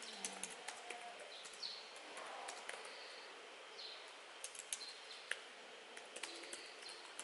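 Laptop keyboard clicking under steady typing, with small birds chirping over a faint background hiss.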